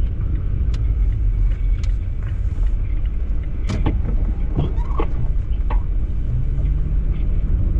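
Steady low road rumble of a car driving, heard inside the cabin, with a few scattered clicks and knocks.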